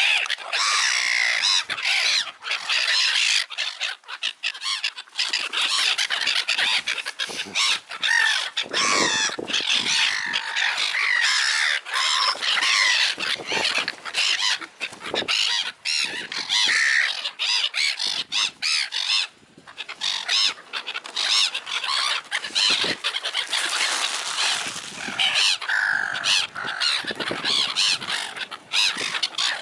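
A flock of birds calling noisily and without a break, crowding and competing for food.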